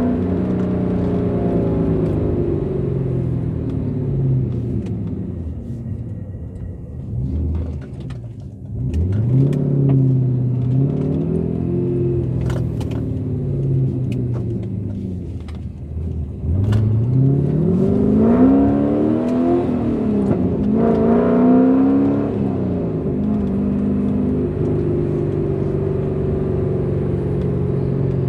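Chevy 6.0-litre LS V8 (L77) in a Porsche 944 S2 driving on the road: the engine note falls away at first, climbs under acceleration about nine seconds in, and climbs again more steeply about sixteen seconds in, then settles to a steady cruise near the end.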